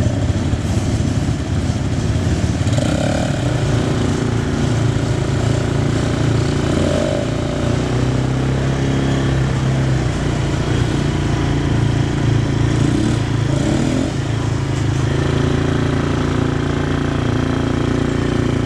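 ATV (quad bike) engines running steadily while riding a dirt trail, with the pitch briefly rising and falling a few times as the throttle changes.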